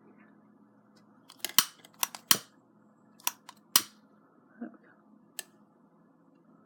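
About eight sharp clicks, spaced irregularly over a few seconds, over a faint steady low hum.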